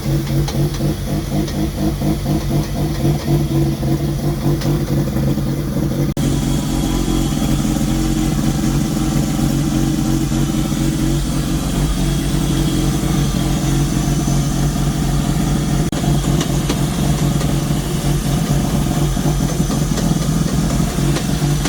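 Mazda 13B turbo rotary engine running steadily on an early run, its fuel mixture set by ear and not yet tuned. The sound changes abruptly about six seconds in.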